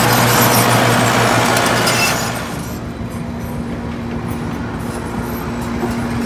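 Engine of a heavy old construction machine running, loud with heavy hiss and clatter for about two seconds, then dropping to a quieter, steady run.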